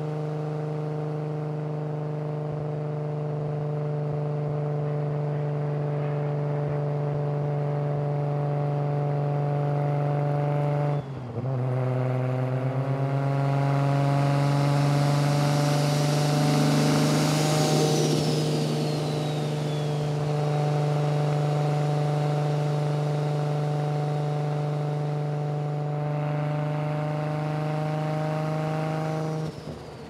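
Nissan R34 GT-R's built RB32/26 straight-six, heard inside the cabin, droning at steady cruising revs. About eleven seconds in it breaks briefly for an upshift, then comes back at lower revs and climbs slowly. In the middle a rush of noise swells and fades, with a falling whistle.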